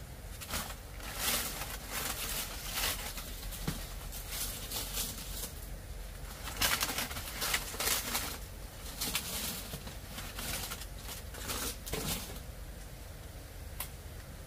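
Large banana leaves rustling and flapping in bursts as they are lifted and pulled off a bamboo slat rack.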